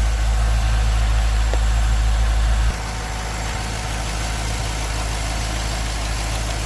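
Pontiac GTO's V8 idling steadily after a fresh oil change, with no ticking or knocking. The low hum drops noticeably in level about two and a half seconds in.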